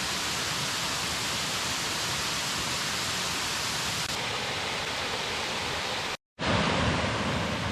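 Mosquito Falls, a waterfall, rushing with a steady, even noise. It cuts out for a split second about six seconds in, then resumes with a little more low rumble.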